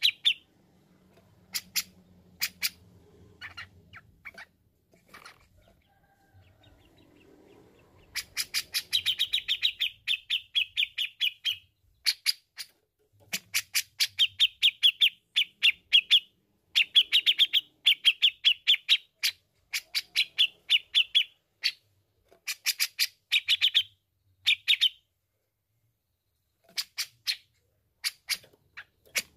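Grey-cheeked bulbul (cucak jenggot) calling in fast runs of sharp, chattering notes, in bouts of a few seconds with short pauses between. The calling is sparse at first, then runs almost continuously from about eight seconds in, and thins to a few notes near the end.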